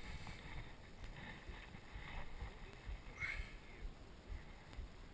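Open-water boat ambience: an uneven low rumble of wind and water moving against the hull of the drifting boat, with no engine running.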